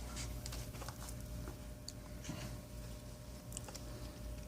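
Faint handling noises as stripped wire ends are twisted together: scattered light clicks and rustles over a low steady hum.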